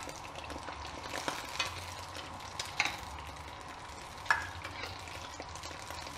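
Neyyappam batter of rice and jaggery deep-frying in hot coconut oil in an iron kadai, a steady sizzle and crackle. A steel ladle scooping oil over the top clinks sharply against the pan a few times, loudest a little past four seconds in.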